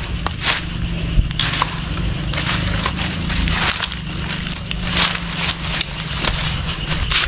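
Footsteps crunching through dry leaves and bamboo litter, with stems and vines brushing past, in irregular steps.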